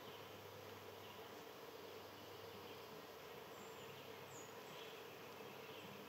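Faint outdoor nature ambience: a steady low hum with insects buzzing, and two tiny high chirps a little past the middle.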